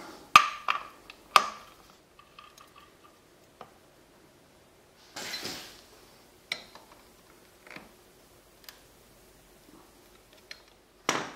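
Metal hand tools clinking against a motorcycle's engine bolts: a ratchet and 17 mm socket on the underside of a 1995 Kawasaki Vulcan VN800 during an oil change. Three sharp ringing clinks come in the first second and a half, a short scrape about five seconds in, then scattered light taps.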